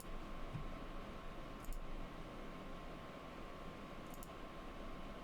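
Computer mouse clicking: three quick pairs of clicks a second or two apart, over a steady low room hum with a faint whine.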